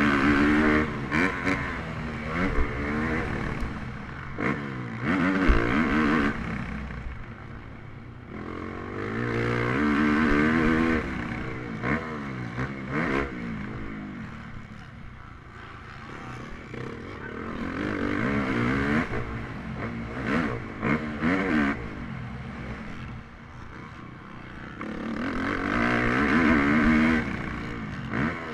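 Motocross bike engine at race pace, revving up and easing off again and again, with four louder surges. Sharp knocks and clatter from the bike running over the rough dirt track come in between.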